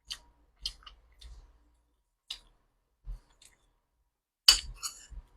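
Close-miked eating sounds: scattered small wet mouth clicks while chewing, then a louder, sharper click with a brief ring about four and a half seconds in.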